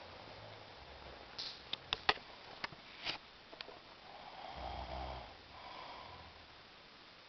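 A sleeping man breathing heavily through his nose, with a louder, fluttering snore about five seconds in and a weaker one just after. Several sharp clicks come in the first half.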